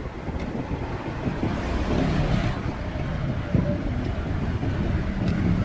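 Road traffic passing beside a roadside stall, a steady rumble with a swell around two seconds in, as of a vehicle going by.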